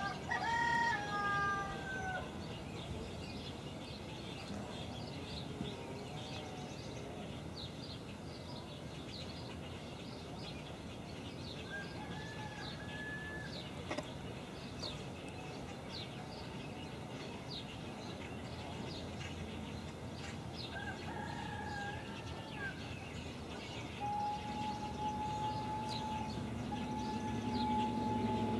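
A rooster crows three times, loudest at the start, over small birds chirping. Near the end a steam locomotive's whistle sounds a long steady blast, broken once partway through.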